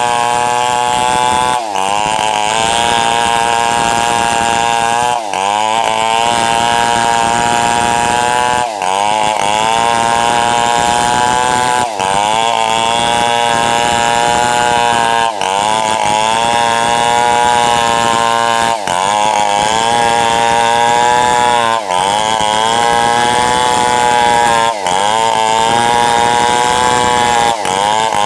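Tuned-up New West 707 two-stroke chainsaw running at high revs while ripping wood. About every three seconds its pitch drops briefly and climbs back, nine times in all.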